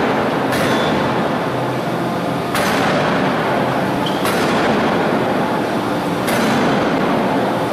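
Hydraulic open-die forging hammer striking a red-hot billet: three heavy blows at uneven intervals, each with a short metallic ring, over a loud steady machinery noise.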